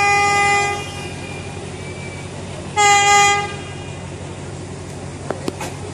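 Thai railway diesel train horn sounding two short blasts, the first ending under a second in, the second about three seconds in, over a steady low rumble. A few sharp clicks near the end.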